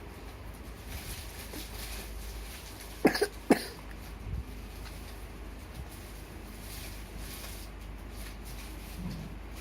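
Two short, sharp coughs about half a second apart, a little after three seconds in, from someone sick with flu and a cough.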